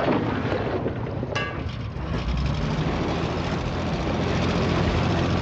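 Small boat's engine running steadily under way, with wind noise over it.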